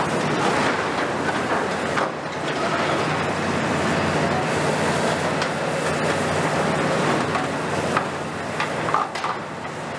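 Kiesel KMC 400 long-front demolition excavator's diesel engine running steadily as its grab pulls and bends corrugated steel cladding, with continuous metal scraping and creaking and a few sharp metallic knocks near the end.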